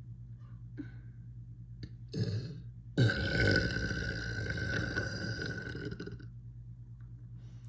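A person burping: a short burp about two seconds in, then a long, loud burp lasting about three seconds.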